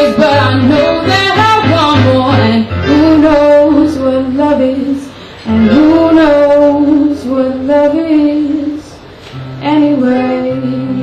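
Live song: a woman singing long held notes over guitar accompaniment. The voice drops out briefly twice.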